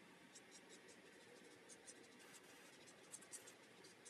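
Faint scratching of an alcohol marker's tip stroking over paper in short, quick shading strokes, with a couple of slightly louder strokes a little after three seconds in.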